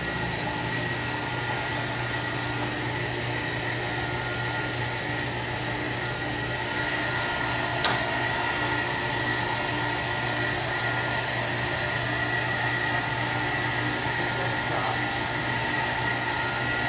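Steady whir of an electric blower, with a faint constant high whine over a low hum; a single click about eight seconds in.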